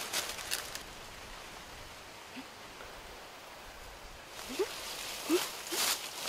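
Leaves and brush rustling as someone moves through dense undergrowth, louder near the end, with a few faint short rising squeaks in the last couple of seconds.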